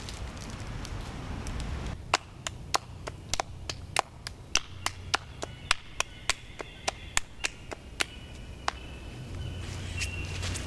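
A regular series of sharp clicks or knocks, about three a second, starts about two seconds in and stops a couple of seconds before the end.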